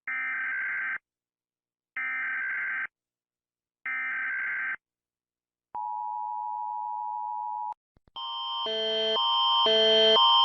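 EAS alert tones: three one-second screeching digital SAME header bursts with short gaps, then a brief steady two-tone attention signal. About eight seconds in, after two clicks, a louder electronic alarm starts, switching between tones about twice a second and swelling in volume.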